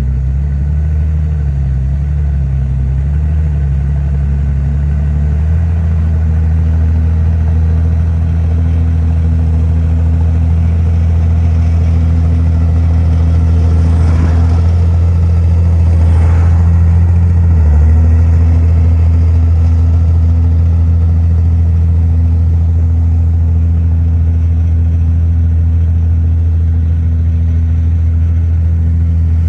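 Heavy diesel engine of earthmoving machinery running continuously under load. Its pitch wavers for the first few seconds, then holds steady, with a brief spell of louder rushing noise about halfway.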